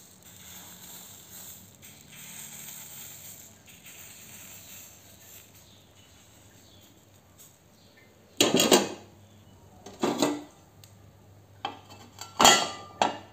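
Metal-on-metal clanking from a steel ladle and a steel plate lid on a multi-cavity pitha pan as rice batter is ladled into the cups and the pan is covered: a faint hiss at first, then four or five sharp clanks over the last five seconds, the loudest as the lid goes on near the end.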